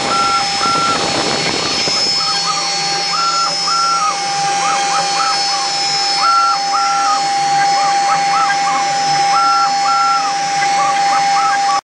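Home-made gantry CNC router carving wood: its high-speed spindle runs with a steady whine while the NEMA 23 stepper motors sing in short tones that rise, hold and fall as the axes sweep back and forth. The pattern repeats about every three seconds.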